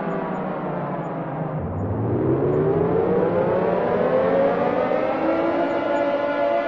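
Air raid siren wailing: its pitch falls low about two seconds in, then rises again and levels off into a steady high tone near the end.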